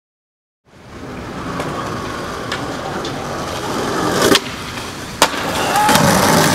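A steady rushing noise that starts suddenly and slowly grows louder, broken by a few sharp clacks, the loudest two about four and five seconds in.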